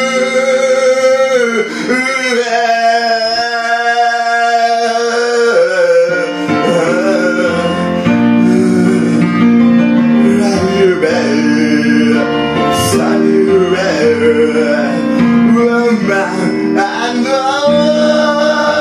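A man singing karaoke into a microphone over a music backing track.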